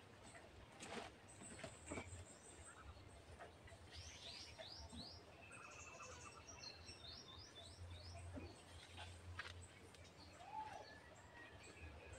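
Faint birdsong: two quick runs of high, rapid chirps about four and seven seconds in, with a few soft knocks.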